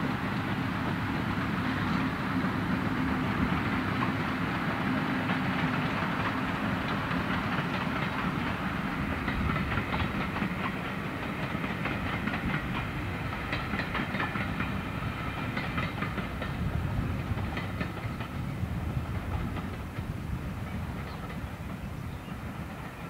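Class 50 diesel-electric locomotive, with its English Electric 16-cylinder engine, running steadily as it passes hauling coaches. From about a third of the way in, the coaches' wheels click rhythmically over the rail joints, and the sound fades near the end as the train moves away.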